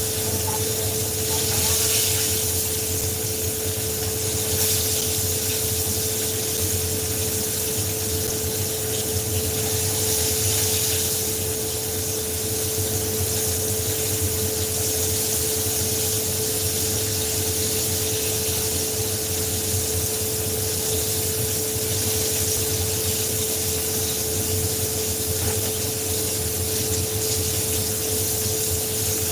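Chicken pieces frying in hot oil in a pan: a steady sizzling hiss that swells a few times, over a constant kitchen hum.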